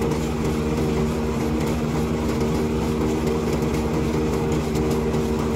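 Engine-driven corn thresher (corn sheller) running steadily while ears of corn are fed into its hopper: an even, unbroken engine-and-machine hum.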